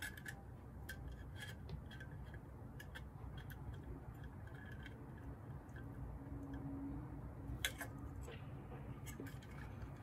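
Small clicks and taps of a Dyson vacuum's plastic battery pack and circuit board being handled and fitted together by hand, with one sharper click about three-quarters of the way through, over a low steady hum.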